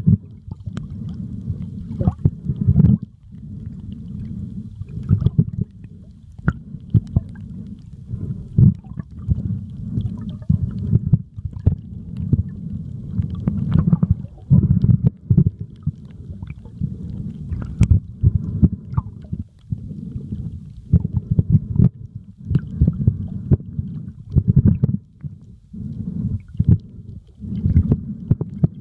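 Muffled, uneven low rumble and sloshing of water moving against a camera held underwater, swelling and dipping every second or so, with scattered faint clicks.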